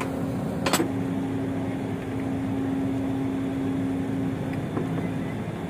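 A steady machine hum, with a single sharp knock about a second in.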